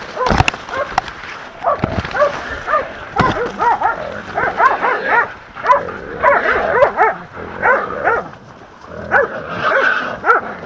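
Hunting dogs barking and yelping rapidly, several calls a second, as they bay a cornered wild boar. A few sharp knocks are heard in the first three seconds.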